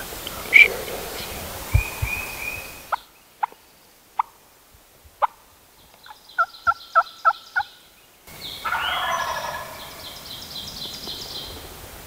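Wild turkey gobbling: a loud, rattling gobble about two-thirds of the way through, over dawn songbirds. In the quieter middle stretch come a few sharp clicks and a quick run of six evenly spaced notes.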